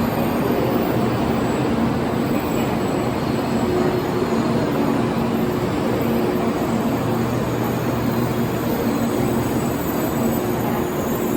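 Kyushu Shinkansen train giving off a steady, even rumble of noise with a low hum running under it.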